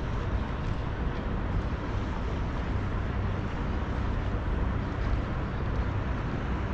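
Steady low rumble of outdoor background noise with a faint, even machine hum running through it.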